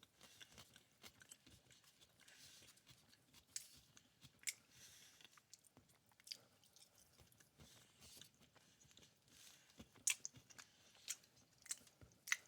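A person chewing and biting food close to the microphone, faint and irregular, with soft wet mouth clicks and smacks and a few sharper ones.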